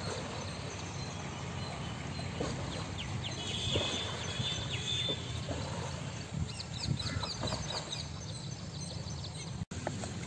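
Small birds chirping in short repeated bursts over a steady low outdoor background noise, with a few faint knocks and splashes; the sound drops out for an instant near the end.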